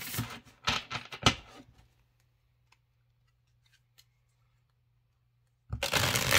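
A thick-cardstock tarot deck being shuffled by hand: a few quick rustling strokes, then a pause of a few seconds, then shuffling again near the end.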